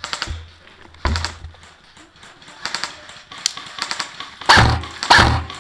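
Airsoft gunfire: scattered sharp clicks and short rattling bursts, with two louder close shots about four and a half and five seconds in, each with a low thump.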